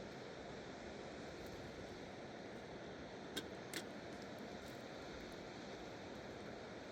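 Steady rushing of a mountain river, with two short clicks about three and a half seconds in.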